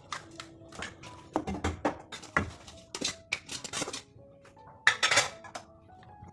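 Kitchen utensils and dishes clattering: a run of knocks and clinks with a louder scrape-like burst about five seconds in, over soft background music.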